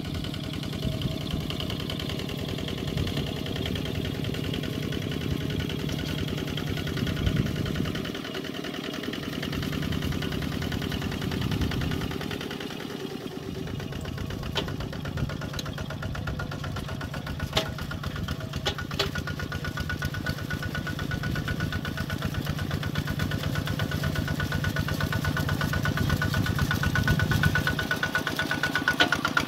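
Single-cylinder diesel engine of a Kubota ZT140 walking tractor running steadily under load with a fast, even chugging beat as it pulls its cage wheels through paddy mud. A few sharp clicks come about halfway through.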